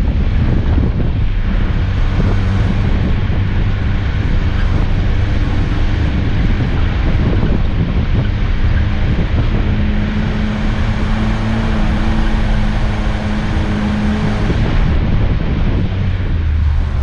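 Off-road 4x4's engine running steadily as the vehicle drives along a snowy, rutted track, with wind noise on the microphone. The engine note grows stronger for a few seconds past the middle, then eases.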